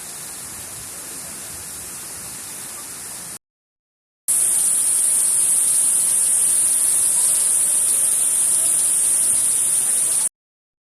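Steady rush of the Misol-Ha waterfall's falling water, a hiss-like noise strongest in the high range. It comes in two stretches, the second louder, with a short gap of silence between them.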